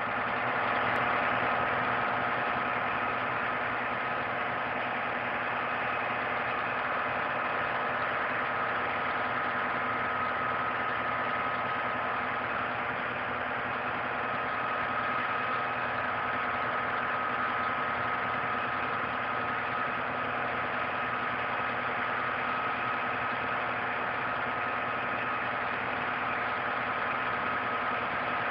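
An engine running steadily at idle, a constant low hum with a steady high whine over it.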